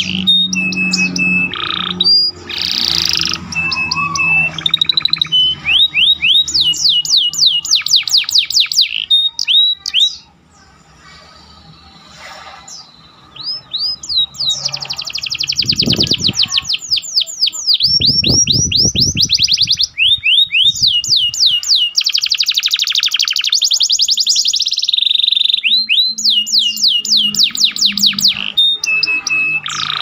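Domestic canary singing in long, fast trills of repeated down-sweeping notes, with a break of a few seconds about ten seconds in. The song carries a ciblek (bar-winged prinia) filler in its repertoire.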